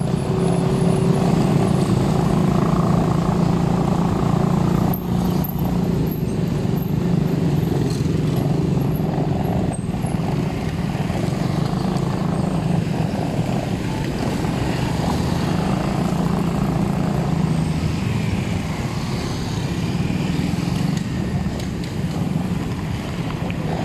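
Motor vehicle engine running steadily, with a continuous low hum and road noise.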